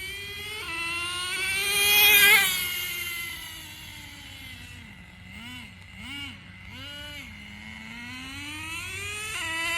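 Nitro RC car's .15 glow engine revving as the car drives: the pitch climbs to a loud peak about two seconds in and falls away, then three short throttle blips follow, and it rises again near the end.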